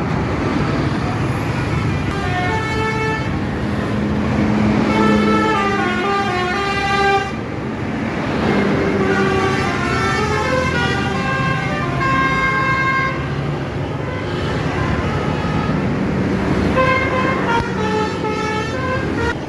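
Bus telolet 'basuri' musical horn playing a tune of quick stepped notes, in two runs with a short break in the middle, over the steady rumble of engines and traffic.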